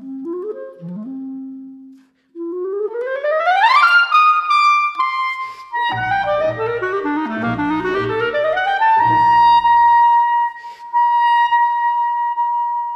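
Solo clarinet playing a few low notes, then a fast rising run up to high notes. From about six seconds in, a string orchestra accompanies with sustained chords while the clarinet sweeps down and back up to a long held high note.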